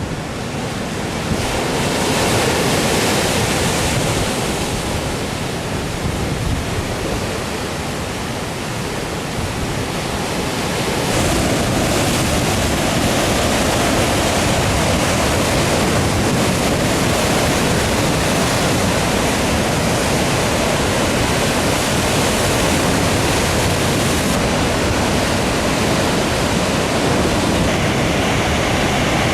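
Heavy surf on the Sea of Japan: high waves, still rough after a typhoon, breaking in a continuous rush of noise that grows louder about eleven seconds in.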